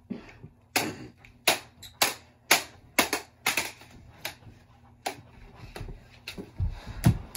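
Plastic toy lightsabers clacking together in a duel: a dozen or so sharp hits, about two a second, with a heavier thud near the end.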